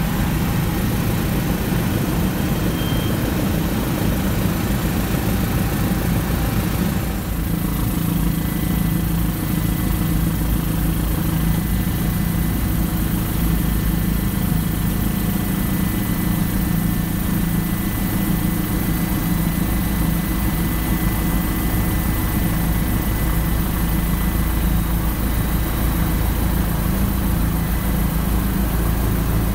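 Helicopter engine and rotor running steadily, a loud, even drone. About seven seconds in the sound shifts slightly, and a faint high whine sits over it from then on.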